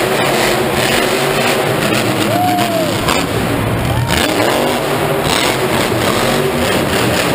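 Son Uva Digger monster truck's supercharged V8 running loud, its revs rising and falling a few times as it drives the floor.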